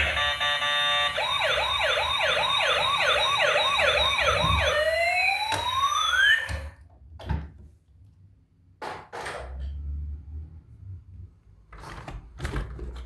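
A toy vehicle's electronic siren: a steady tone for about a second, then a fast rising-and-falling yelp about three times a second, winding down in one long falling glide that cuts off about six and a half seconds in. After it come a few scattered knocks and clicks.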